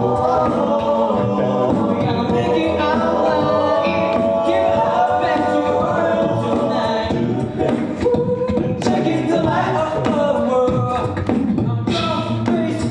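A cappella group singing in close harmony, several voices holding chords over beatboxed vocal percussion.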